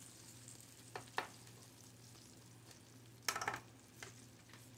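Metal tongs clicking and scraping against a dark metal roasting pan as baked chicken thighs are flipped in their hot juices, with two sharp clicks about a second in and a louder clatter a little past three seconds. A faint sizzle of the hot pan juices runs underneath.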